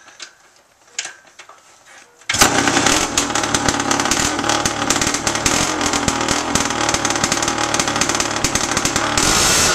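Yamaha SC500's 500cc single-cylinder two-stroke engine being kick-started: it catches about two seconds in, on its first start after 26 years of sitting, and keeps running loudly with rapid firing. It gets a little louder near the end.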